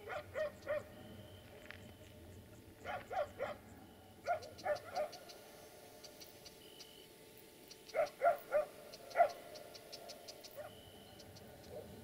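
A small dog barking in quick runs of three short barks, repeated four times, then one single, louder bark about nine seconds in.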